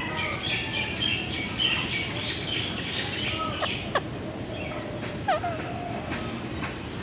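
Ringneck parrot chirping in short calls, with two quick sharp calls sweeping in pitch about four and five seconds in, over a steady background noise.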